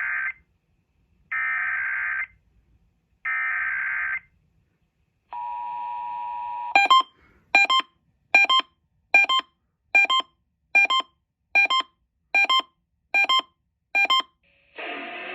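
Emergency Alert System digital header: three one-second bursts of screeching data tones, then a short steady two-tone attention signal. After it come about ten short beeps, a little more than one a second, and music starts near the end.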